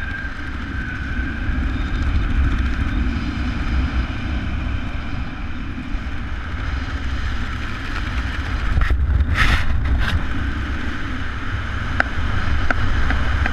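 Wind rushing over a helmet camera's microphone during parachute canopy flight: a steady low rumble with a thin higher whistle over it, and a louder rush of air about nine seconds in.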